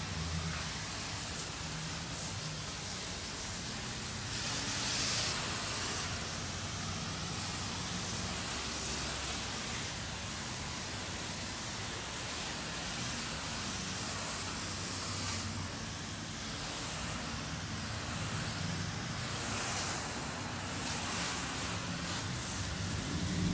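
Self-serve car wash pressure wand spraying spot-free rinse water onto a car's wheels and side panels: a steady hiss of spray, with a low hum underneath.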